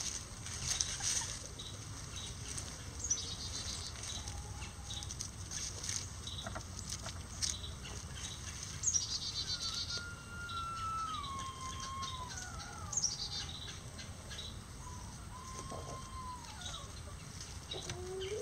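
Bantam chickens calling in a few drawn-out, wavering, falling notes, with scattered light clicks and rustles. High falling bird trills come every few seconds.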